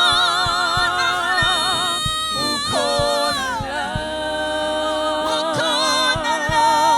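Gospel worship singers holding long, wavering notes in harmony, over a low beat.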